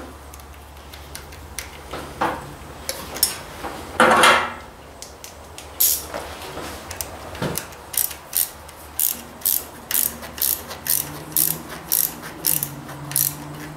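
Ratcheting clicks from a hand-worked ratchet mechanism: scattered at first, then a steady run of about two to three clicks a second from about eight seconds in. A faint low hum runs under the clicks from about nine seconds in.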